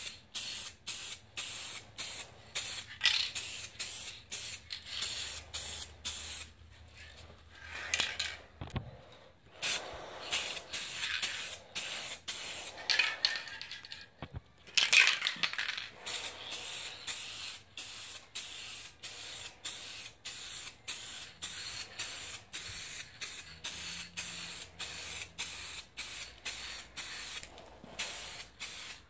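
Aerosol spray can of car paint hissing in short rapid bursts, about two or three a second, as it is swept over a plastic bumper. Brief pauses come about a third of the way in and near the middle.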